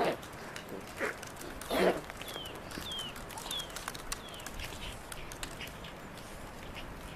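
Two domestic cats fighting on dry leaves: scuffling and rustling, with short cat cries at the start, about a second in and near two seconds in, the last the loudest. A bird chirps in the background, a run of short falling chirps.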